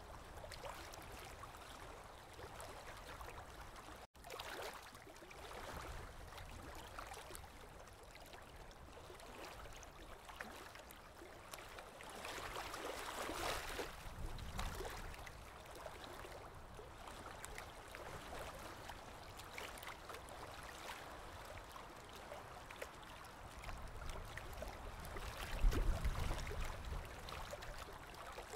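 Small waves on Lake Erie washing and lapping at the shore, a steady wash of water that swells louder about halfway through and again near the end. The sound cuts out for a moment about four seconds in.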